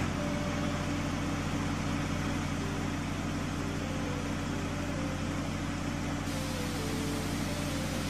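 Truck engine sound effect running at a steady, even hum, with a constant hiss over it.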